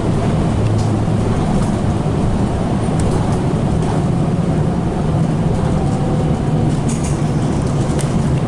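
Interior ride noise of a Hess Swisstrolley 3 electric trolleybus under way: a steady low rumble and hum from the running gear and electric drive, with a few faint knocks and rattles from the body.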